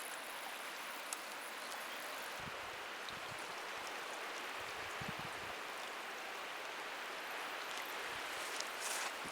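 Steady hiss of running water from a stream, with a few faint low thumps.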